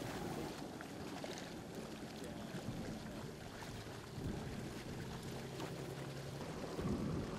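A motor running with a steady low hum over an even hiss.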